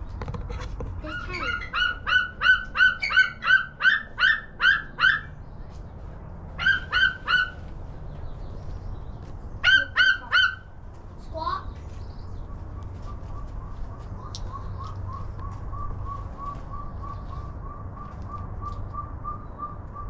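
Bald eagle calling: a run of about nine high, piping chirps at roughly three a second, then two shorter bursts of three. From about halfway through, a faint, fast run of high notes continues in the background.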